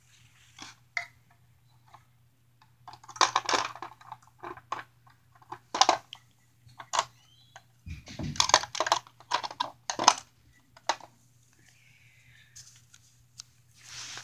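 Small plastic toy pieces clicking and clattering as they are handled and set down, in irregular clusters of sharp clicks and knocks, with a dull thump about eight seconds in.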